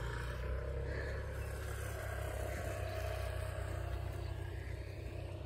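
Steady low rumble of outdoor background noise, with a faint hum holding one pitch through the middle.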